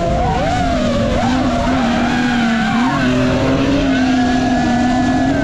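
A drift car slides with its engine held at high revs and its rear tyres skidding, over a wavering whine that rises and falls.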